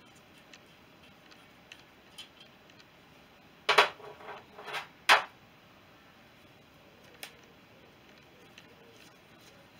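Light metallic ticks and scrapes of hand-tool work on motorcycle engine fittings. A short metal clatter comes near four seconds in, then a single sharp clink about a second later.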